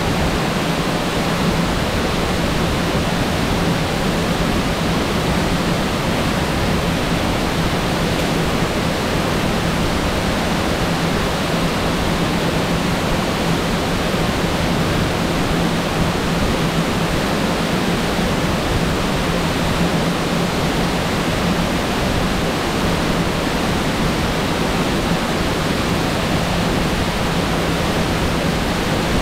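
Waterfall pouring into its plunge pool: a steady, unbroken rush of falling water.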